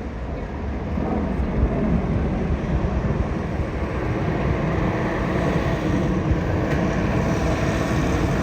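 Steady engine drone with a rumble, getting louder about a second in.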